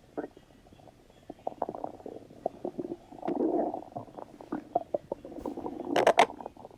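Human stomach rumbling: a run of short gurgles and pops, with a longer gurgling rumble about three seconds in. A quick cluster of sharp, louder clicks comes near the end.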